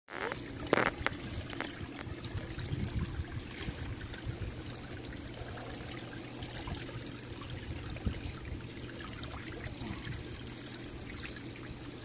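Hot tub waterfall spout pouring a steady stream into the tub water, broken up as a baby's hand plays in the falling water, over a steady low hum. A short sharp sound is loudest less than a second in.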